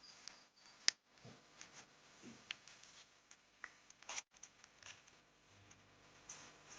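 Kale leaves being picked and handled: faint rustling with a few sharp snaps, the sharpest about a second in and another about four seconds in.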